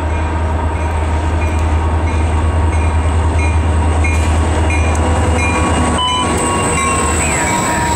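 EMD SD40-2 diesel locomotive, its 16-cylinder two-stroke engine working under load as it pulls a freight train toward and past close by. A deep steady engine drone grows louder over the first few seconds, over the rumble of the train.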